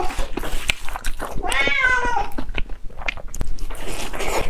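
A cat meows once, one drawn-out call about a second and a half in. Around it are the close-miked crunching and smacking sounds of fried bread being chewed.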